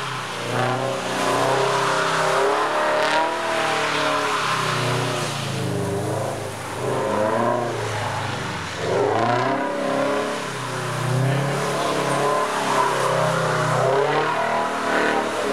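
Car engine revving hard, its pitch climbing and dropping again and again as the throttle is worked.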